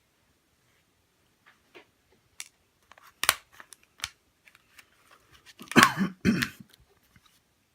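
Handling noises at a model-painting bench: a few sharp small clicks and taps, then a louder patch of rubbing and crunching about six seconds in.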